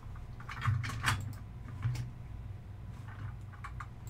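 Light plastic clicks and rattles from handling an HO scale model tank car: a quick cluster about half a second to a second in, then single clicks near two and three seconds, over a steady low hum.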